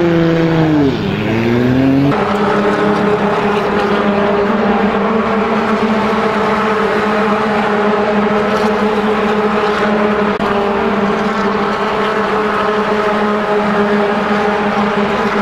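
Race truck engine revving up and down as the truck pulls away. About two seconds in the sound changes abruptly to a steady, even engine drone from race trucks running at constant speed on the oval.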